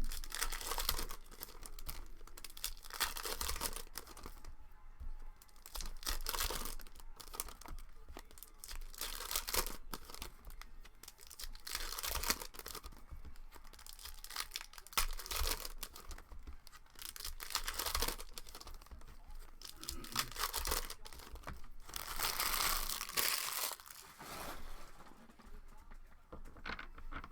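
Plastic trading-card pack wrappers being torn open and crinkled by hand, in repeated rustling bursts.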